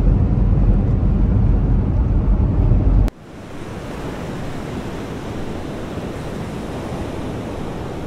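Road and engine noise inside a moving Nissan car's cabin, a heavy low rumble that cuts off suddenly about three seconds in. After the cut, a steady hiss of wind and sea waves.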